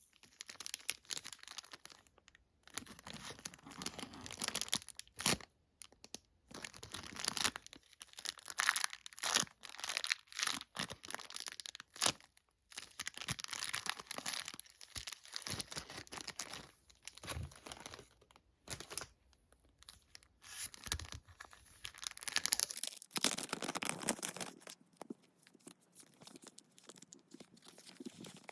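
Plastic packaging crinkling and tearing in irregular bursts with short pauses between them, as it is handled and opened. It grows quieter and sparser over the last few seconds.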